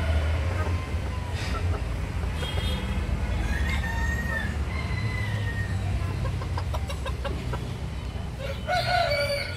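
A flock of feather-footed bantam chickens clucking and calling, with a louder call near the end, over a low steady rumble.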